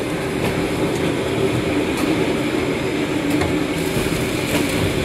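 T-8025 shrink-wrapping machine running steadily as it wraps stacks of books in PE/POF film: an even mechanical hum with a few faint ticks about every second and a half.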